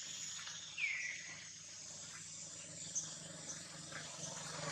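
Steady high-pitched insect chorus, crickets or cicadas buzzing in the forest, with one short high squeak falling in pitch about a second in. A low hum builds near the end.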